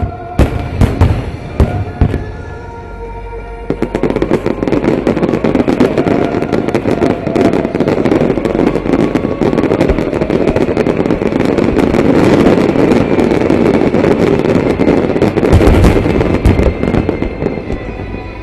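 Fireworks display: a few loud separate shell bursts in the first two seconds, then from about four seconds a continuous dense crackle of many rapid bursts, with heavier booms near the end.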